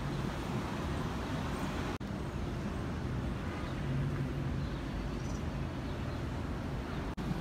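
City street ambience: a steady wash of traffic noise with a low engine hum from passing and idling vehicles, briefly dropping out twice where the footage is cut.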